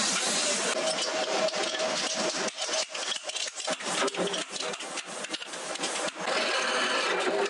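Hand hammer striking thin steel rods on a steel anvil block in a quick, irregular run of sharp knocks. About six seconds in, the knocks give way to a steady rushing noise.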